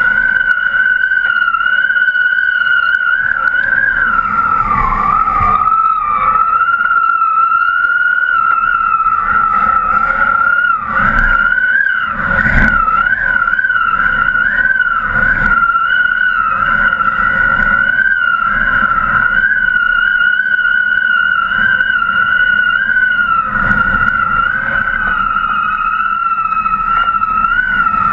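Wind on a kite's rig and camera: a steady high whistle that wavers a little in pitch, over a low wind rumble on the microphone, with a few stronger gusts about eleven to thirteen seconds in.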